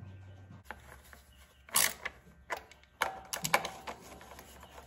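Scattered small clicks and taps of hands working a rubber fuel line and its clamp onto a small-engine carburetor, with one short, louder scrape about two seconds in.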